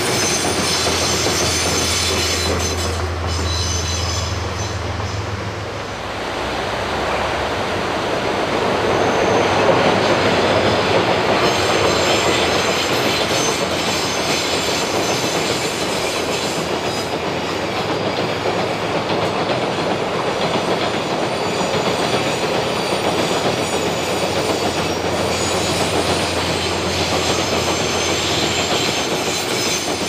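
Diesel train running on rails: a steady, loud rumble of wheels with squealing and clatter over the rail joints, a low hum dropping away about six seconds in.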